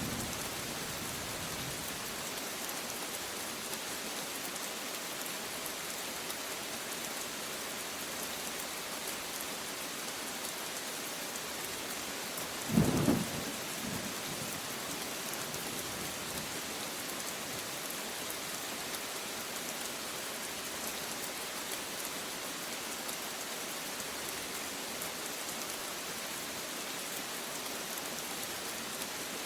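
Steady rain falling, with one short clap of thunder about halfway through.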